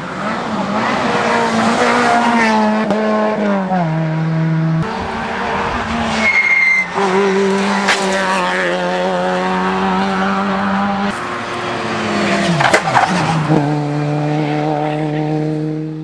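Rally car engines running hard at high revs, the pitch jumping up and dropping in steps as the cars change gear through corners. A brief tyre squeal comes about six seconds in. The sound cuts off at the end.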